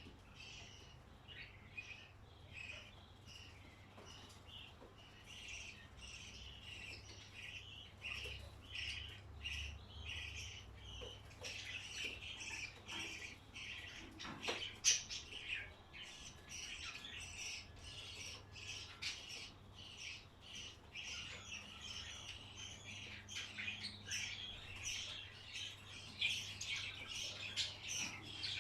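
Many small cage birds chirping together in a dense, continuous chatter, with one sharp knock about halfway through.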